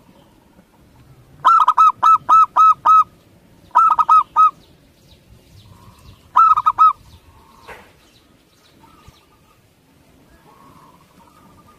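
Zebra dove (perkutut) calling: three runs of quick, loud cooing notes, about six, then four, then three, with softer calls between them. A single sharp click comes about two-thirds of the way through.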